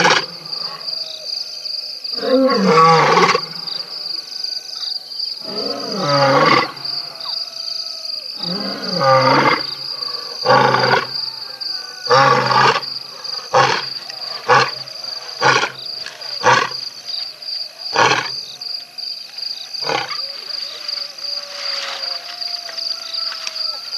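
Lion roaring bout: five long, deep roars a few seconds apart, trailing off into a series of shorter grunts spaced about one to two seconds apart, fading out near the end.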